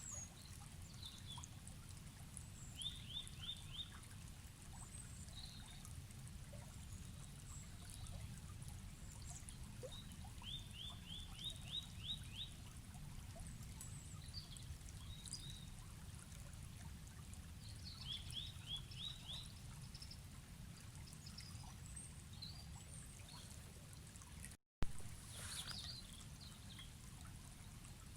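Forest river ambience: a steady low rush of flowing water with small birds chirping above it. A short trill of quick descending notes comes three times, about seven or eight seconds apart. Near the end the sound cuts out for a moment and comes back with a sharp click.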